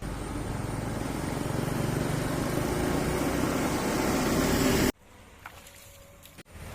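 Road vehicle noise, a loud steady rush that grows slowly louder, then cuts off abruptly about five seconds in, leaving quieter background traffic sound.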